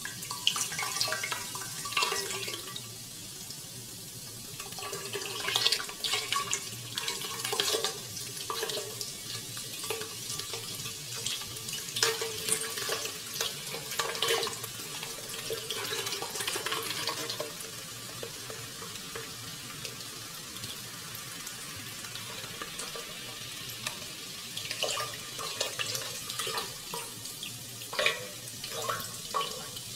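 A stream of liquid poured into a glass vessel, splashing and gurgling as it fills and foams up, with irregular louder splashes.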